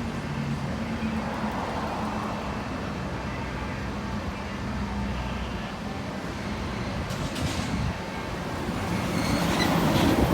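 A vehicle running with a steady mechanical rumble that grows louder near the end.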